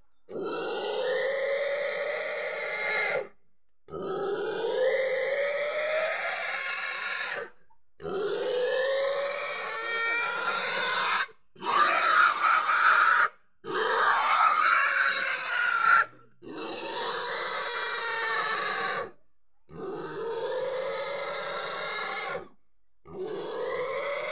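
A pig screaming in distress as it is held down for slaughter: about eight long, drawn-out squeals of two to three seconds each, broken by short pauses for breath, loudest near the middle.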